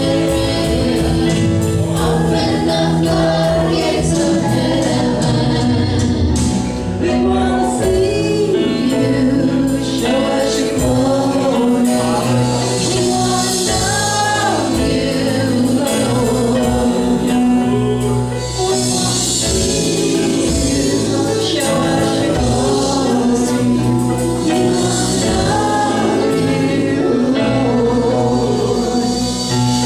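Gospel music: a choir singing over instrumental accompaniment with a steady beat.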